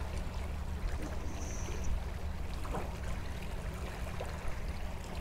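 Gloved hand digging in wet tidal mud among rocks and oyster shells: a few faint scattered clicks and squelches over a steady low rumble.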